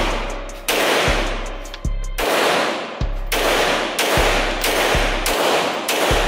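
A semi-automatic pistol fired in a steady string, about one shot a second, each report echoing off the walls of the indoor range.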